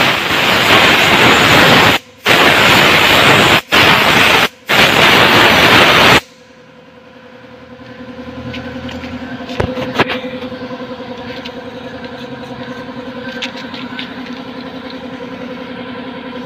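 Compressed air blasting through a carburetor from an air inflator gun, a loud hiss in four blasts with short breaks over about six seconds, to clean its passages. Then a steady motor hum carries on, with a few light clicks of parts being handled.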